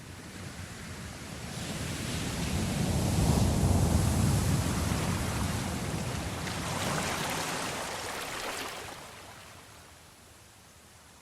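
Ocean surf: a wave breaks and rushes in, swelling over the first few seconds, surging a second time and then washing away to a quieter hiss.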